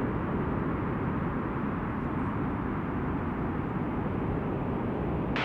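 Filtered white noise from the noise oscillator of Ableton's Analog synth: a steady dark hiss with a strong low end, like wind. Near the end the filter opens suddenly and the hiss turns brighter.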